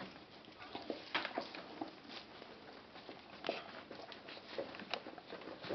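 Bohemian Shepherd (Chodský pes) mother and her newborn puppies moving about on newspaper bedding in a whelping box: soft, irregular rustling and clicks, several a second.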